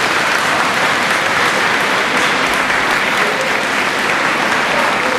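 A crowd applauding steadily, a continuous dense clapping without breaks.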